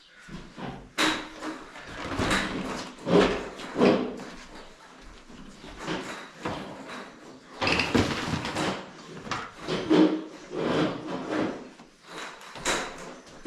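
Irregular knocks, scrapes and rattles of shower unit parts being handled and pushed into place for a test fit.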